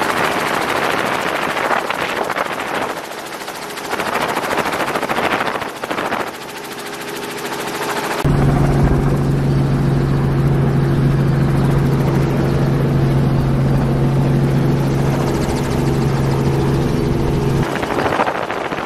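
Helicopter running in flight: a loud rushing noise of rotor and wind that swells and fades a few times. About eight seconds in it gives way to a steady low hum with a few overtones, which lasts until near the end.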